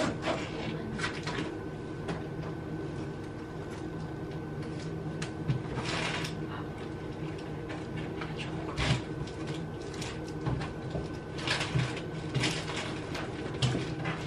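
Items being handled and pulled out of an open hard-shell suitcase: short rustles and knocks of packaging about six seconds in and several more near the end, over a steady low hum.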